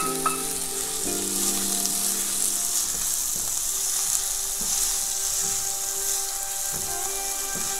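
Chopped onions frying in olive oil in a metal pan, a steady sizzle, stirred with a wooden spatula. A couple of light knocks at the very start.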